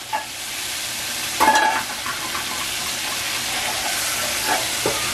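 Breaded chicken wings deep-frying in hot oil, a steady sizzle from the bubbling pan. A brief louder burst about a second and a half in.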